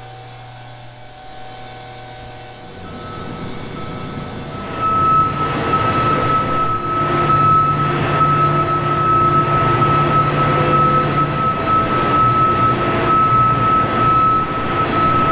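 John Deere S790 combine's diesel engine running as the combine drives into the shed, quieter at first and getting louder from about three seconds in, with a steady high whine over the engine hum.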